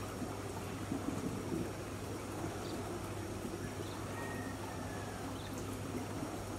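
Steady outdoor garden ambience: a constant rushing hiss like running water over a low steady hum, with a few faint high chirps and one short whistle from animals in the surrounding greenery.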